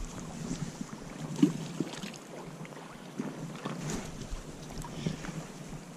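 Steady rushing of the Kenai River's current flowing past the bank, with a few faint, scattered clicks and knocks.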